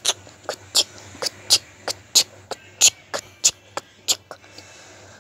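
Footsteps on a hard floor: sharp, irregular steps about two to three a second, stopping briefly near the end.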